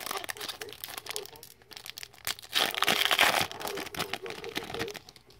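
Foil trading-card pack wrapper crinkling and tearing as it is opened and the cards pulled out, loudest about halfway through.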